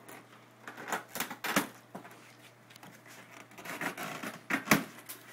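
Plastic strapping on a cardboard shipping box being cut and pulled off by hand: a few sharp clicks about a second in, a rustling scrape of strap against cardboard near four seconds, then two sharp snaps, the loudest sounds, just after.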